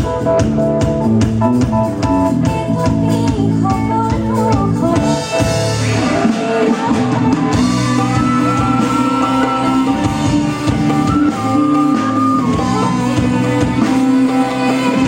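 Loud live band music with drum kit and guitar keeping a steady beat.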